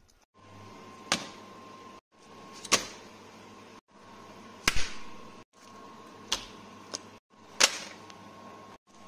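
Five sharp clicks or knocks, roughly one every one and a half seconds, over a steady low hum with a faint high tone, broken by several brief silent gaps.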